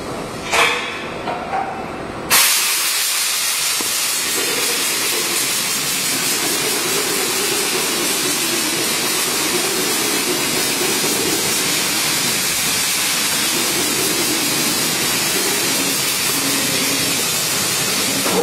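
CNC router machine running in the workshop: a loud, steady hiss that starts abruptly about two seconds in, with a wavering mid-pitched hum beneath it.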